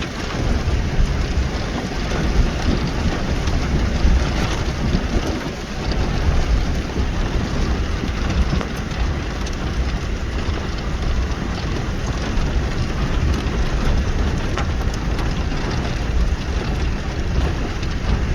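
Storm wind rushing and buffeting the microphone, with rain. A loud, steady roar that is heaviest in the low end and rises and falls a little in gusts.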